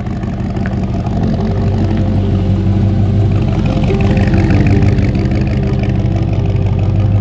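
Chevrolet Corvette C3's V8 engine running and revving, growing louder over the first second and staying strong.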